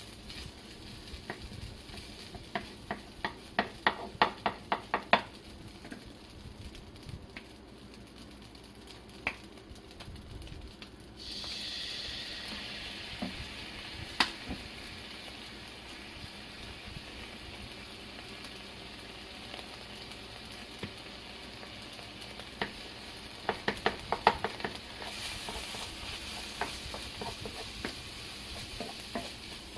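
Fried rice being stir-fried with a wooden spatula in a nonstick frying pan: quick runs of clacks and scrapes from the spatula against the pan. About eleven seconds in a sizzle rises suddenly as soy sauce and garlic hit the hot pan, and it keeps sizzling.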